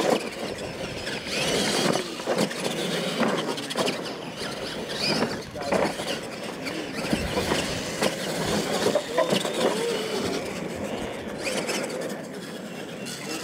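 Radio-controlled monster trucks racing on a dirt track: electric motors and gears whining as they throttle up and down, with tyres scrabbling on the dirt and faint voices behind.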